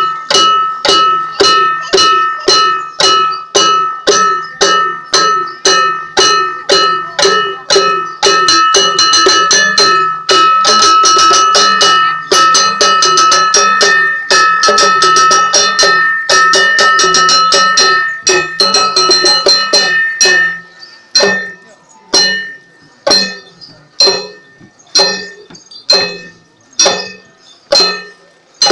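Struck metal percussion ringing at the same fixed pitch on every stroke, about two strikes a second at first. Around eight seconds in it quickens into a fast, continuous roll with a low steady tone beneath. From about twenty seconds in it thins to single strikes roughly a second apart, each left to ring out.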